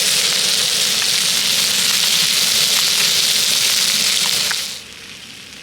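Whole trout frying in butter in a pan, a loud steady sizzle that cuts off abruptly about four and a half seconds in.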